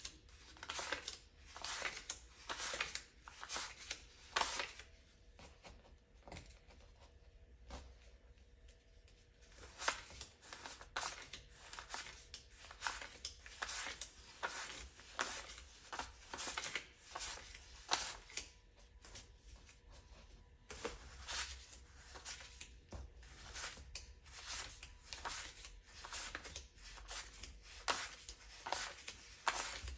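Crisp $100 banknotes counted by hand, each bill peeled off the stack with a papery flick and laid down on piles on a wooden table, about one to two a second, with a couple of short pauses.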